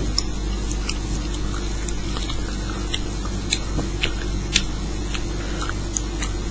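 Steady low hum, with scattered faint short clicks and ticks at irregular intervals.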